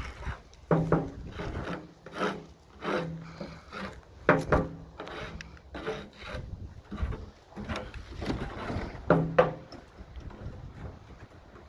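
Garage door creaking and rubbing as it moves: a string of short, irregular pitched creaks over a scraping noise.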